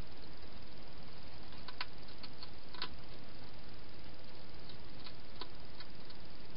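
Wild hedgehog eating from bowls inside a plastic feeding box: scattered small clicks and crunches, a cluster about two seconds in and a few more near the end, over a steady hiss.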